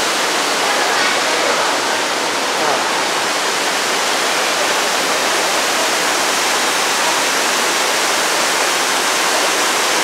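Steady rush of heavy rainwater cascading down through an open roof into an indoor garden, like a waterfall.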